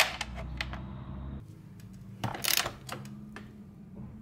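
Small metal hardware clinking and rattling as a bolt is pushed through a snowmobile ski's pivot and a nut is fitted on it: a sharp click at the start and a louder clatter about two seconds in.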